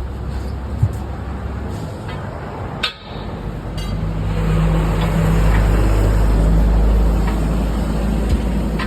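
A large engine or machine running with a steady low rumble, swelling louder about four seconds in; a sharp knock a little under three seconds in.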